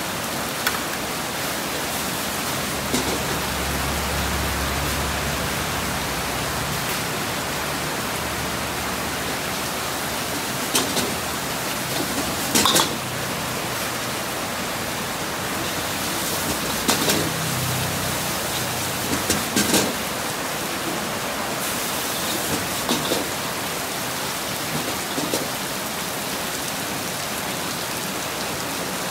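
Noodles being stir-fried in a wok over a gas burner: a steady hiss, with a metal ladle clanking and scraping against the wok every few seconds.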